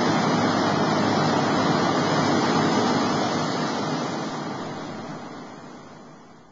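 Blast hole drill rig's machinery running, a steady loud noise with wind on the microphone, fading out over the last three seconds or so.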